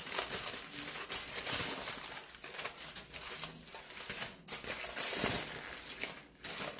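Aluminium foil crinkling and rustling in irregular bursts as hands fold it and press it snug around a frozen, plastic-wrapped cake.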